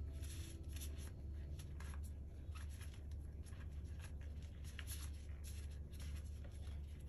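Gloved hands pulling apart a cluster of shimeji mushrooms: the rustle of disposable plastic gloves and many small irregular snaps and crackles as the stems break off. A low steady hum runs underneath.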